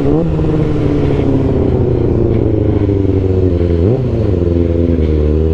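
Kawasaki ZX-6R inline-four through an M4 GP exhaust, heard while riding: the engine note sinks slowly as the bike eases off, then rises sharply and briefly about four seconds in before settling again, with wind noise underneath.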